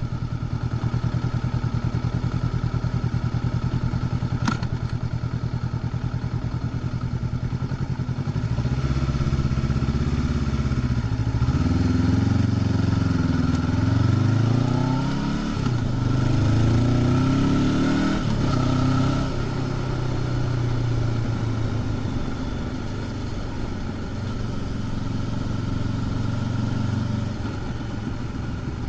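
Honda CB500X's parallel-twin engine with stock exhaust, heard from the rider's seat. It runs at a steady low note, then from about eight seconds in its pitch rises and falls several times as the rider opens and closes the throttle, and it settles back to a steady cruise near the end. A single brief tick comes about four seconds in.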